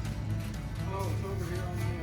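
Background music with guitar over a steady bass line.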